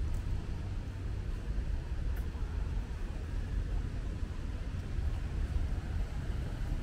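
Steady low rumble of city street ambience: distant boulevard traffic, with no single vehicle standing out.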